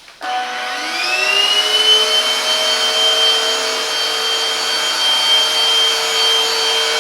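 Silvercrest Aqua cordless vacuum-mop switched on: its motor starts abruptly and spins up with a rising whine over about a second and a half, then runs at a steady pitch.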